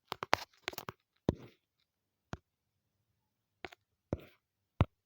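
A series of short, sharp clicks, about nine of them irregularly spaced, some trailed by a brief soft noise, with near silence between.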